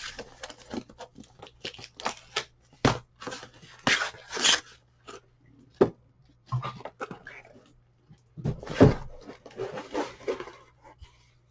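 Skate packaging being opened by hand: tearing, rustling and crinkling of the box and wrapping, with several sharp knocks.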